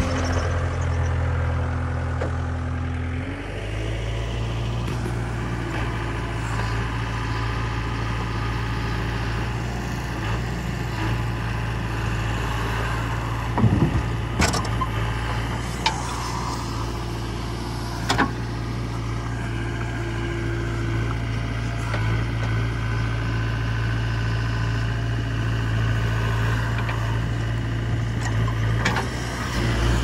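Diesel engines of a JCB 3DX backhoe loader and a Powertrac tractor running steadily while loading mud. The engine note shifts about three seconds in, and a few sharp clanks come through around the middle.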